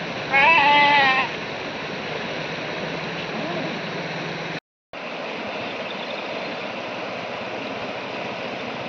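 Steady rush of floodwater flowing, with a loud, high, wavering animal cry lasting about a second near the start. The sound cuts out briefly just past the middle.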